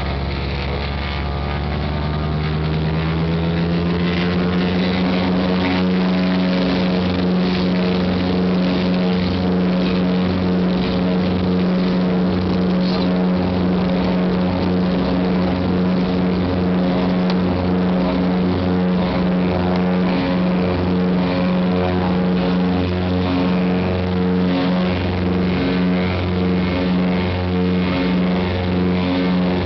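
Britten-Norman Islander's twin propeller engines heard from inside the cabin, rising in pitch over the first few seconds as power comes up for take-off, then running steady at take-off power through the take-off roll and climb-out.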